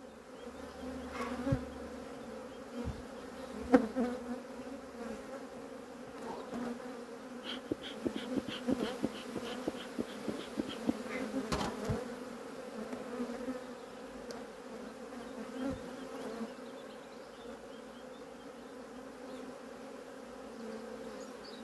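Honeybees buzzing in a steady hum around an open hive. A few light knocks and clicks cut through it, and about halfway through there is a short run of quick, evenly spaced high ticks.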